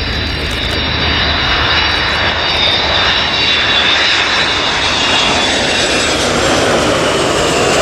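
Boeing KC-135R Stratotanker's four CFM F108 turbofan engines on landing approach: a steady jet rumble with a high fan whine, growing louder as the aircraft comes closer. Near the end the whine starts to drop in pitch as it passes.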